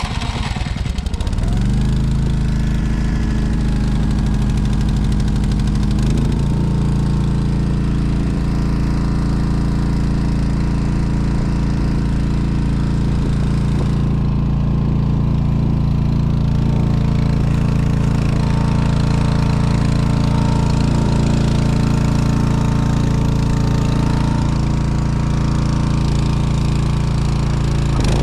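Honda snowblower engine just started, picking up speed over the first second or two and then running steadily. Its note shifts slightly about six seconds in.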